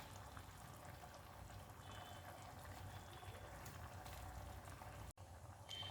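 Faint bubbling of a thick ground masala gravy coming to a simmer in a pan, with a few soft pops.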